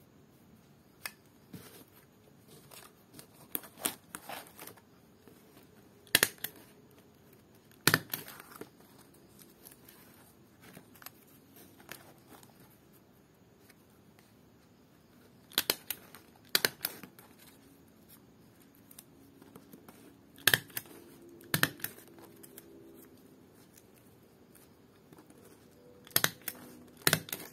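Small hand stapler snapping shut about eight times, stapling pieces of lontar palm leaf; the sharp clicks come mostly in pairs about a second apart, with light rustling of the leaf between.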